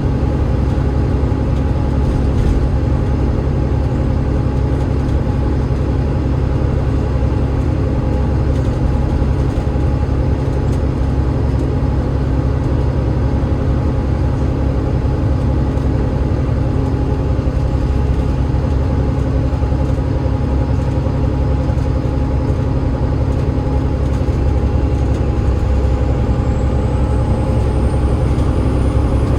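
Enviro500 MMC double-decker bus under way, its Cummins ISL8.9 six-cylinder diesel and ZF EcoLife automatic driveline giving a steady, loud low drone with several steady whine tones over it. A faint high whine rises near the end.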